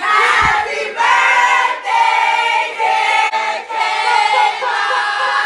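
Several voices singing together in held, chorus-like notes.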